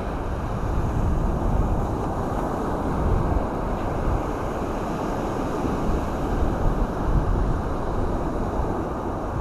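Wind buffeting the microphone over the wash of surf on the beach: a steady, rushing noise with an uneven low rumble.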